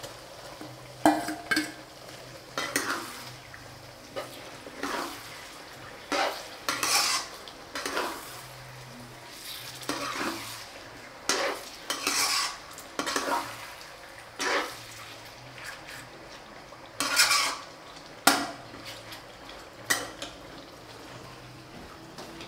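A metal ladle stirring fish curry in an aluminium pot, scraping and knocking against the pot in irregular strokes, a few of them sharp clanks.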